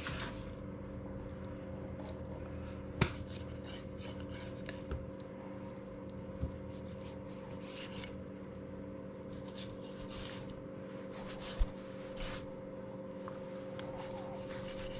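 Knife filleting a speckled trout: soft scraping and squishing as the blade runs through the flesh along the backbone and ribs, with a few sharp knocks, over a steady background hum.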